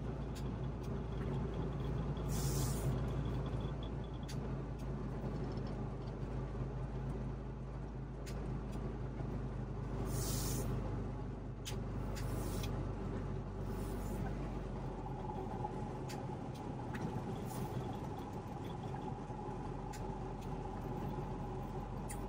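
Trabant 601's two-cylinder two-stroke engine running steadily as the car drives, heard from inside the cabin, with a few brief hissing swells.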